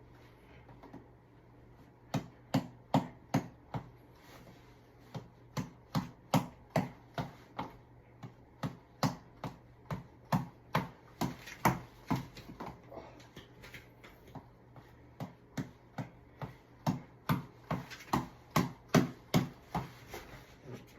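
Reflex ball (tap ball) being punched over and over, sharp quick hits at about two or three a second, in several runs broken by short pauses.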